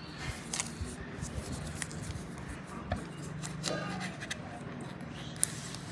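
Quiet handling noise as a smartphone is lifted out of its cardboard box: light scrapes, rustles and small clicks of card and the phone's plastic film, over a faint steady low hum.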